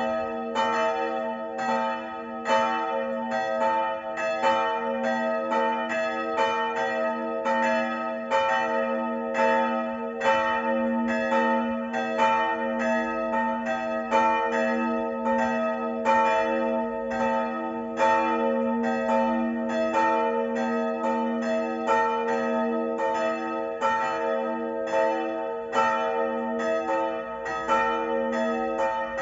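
Church bells of the village church swinging and ringing together for the evening peal (Abendläuten), struck automatically by the bells' digital control. Strikes come two or three a second in an uneven, overlapping stream over a steady hum of several ringing tones.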